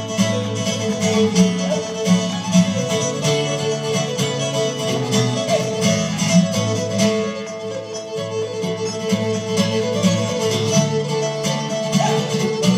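Fiddle and acoustic guitar playing an Irish reel live: the fiddle carries the melody over steadily strummed guitar chords.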